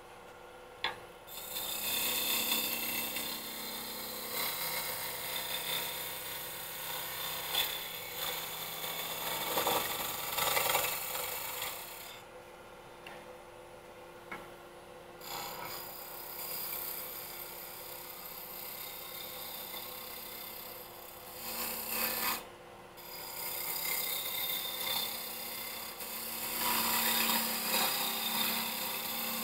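Turning gouge cutting a spinning wooden mallet blank on a lathe, a steady scraping hiss of shavings as the cylinder is brought down to about 3 inches. It breaks off for a few seconds about twelve seconds in and briefly a little after twenty seconds as the tool is lifted. The lathe's motor hums steadily underneath.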